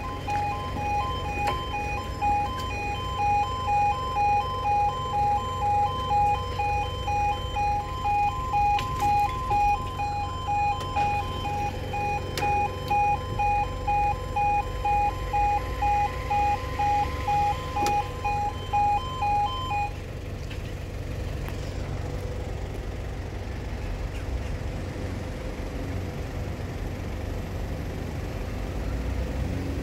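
Level crossing alarm sounding: a pulsing two-tone electronic yodel that repeats steadily and stops about two-thirds of the way through, leaving a low steady rumble.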